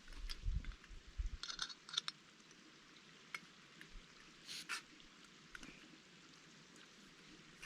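Camping gear being handled while a tent is pitched: scattered rustles and light clicks, with a few low thumps in the first second and a half and crinkly bursts about a second and a half in and again near the middle.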